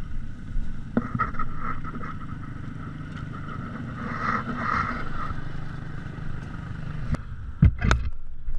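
Side-by-side UTV engines running at low speed as the machines crawl up a rough, rocky trail, with a few sharp knocks, the loudest near the end.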